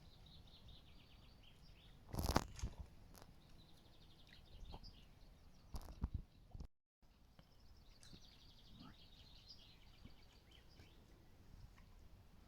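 Small songbird singing a fast trilled phrase three times, each sliding slightly down in pitch. There are two loud crunching knocks about two and six seconds in, and the sound cuts out briefly just before seven seconds.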